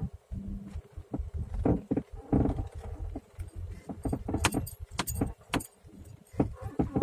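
Mitsubishi Legnum suspension knocking and squeaking in irregular clunks and creaks, on a car with no anti-roll bar fitted. The owner suspects the ball joints of the curved upper control arms.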